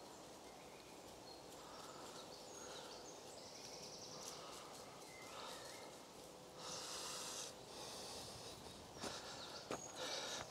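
Springer spaniel sniffing and snuffling through leaf litter, with a louder burst of snuffling about seven seconds in, then rustling and twig snaps near the end. Faint short high bird calls sound now and then.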